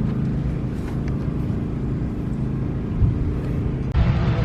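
Steady low engine drone with a few faint clicks over it. It cuts off abruptly near the end.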